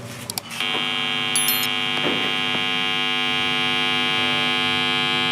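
Home power inverter giving off a loud, steady electrical buzz with a high whine over it. It starts under a second in, after a couple of clicks. This is the abnormal noise of an inverter that is making too much sound.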